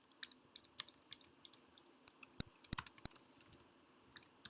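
A piercing, very high-pitched ding repeating about three times a second, swelling louder over the first couple of seconds and then holding. Two short knocks come through a little past the middle.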